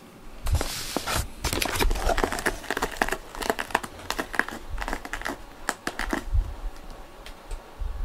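A cat's claws scratching and scrabbling on the corrugated cardboard inside a round cat-scratcher bowl, making a run of quick, dry, crackling scrapes that ease off near the end.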